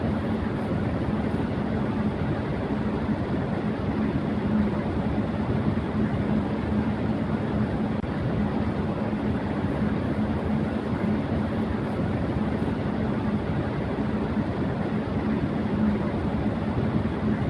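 Electric fan running at high speed: a steady rush of air with a constant low hum, unchanging throughout.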